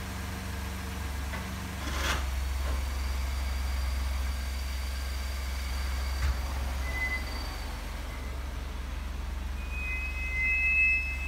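Vehicle brakes squealing over the steady low rumble of the moving vehicle: a thin, high squeal is held for several seconds from about two seconds in, a brief shorter squeal comes near seven seconds, and a lower squeal starts near the end.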